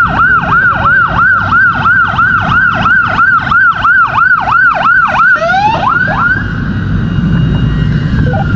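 Emergency vehicle siren in a fast yelp, rising and falling about three to four times a second. About five seconds in it switches to a few slower upward sweeps, then cuts off, leaving a low steady rumble.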